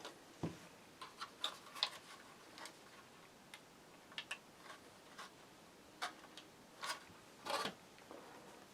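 Faint, irregular clicks and light taps, about a dozen scattered through, from a plastic fire alarm horn strobe being handled; the horn itself is not sounding.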